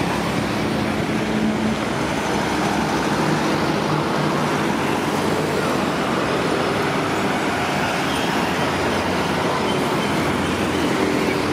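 Double-decker sleeper coach's diesel engine running close by at low speed, over steady road-traffic noise.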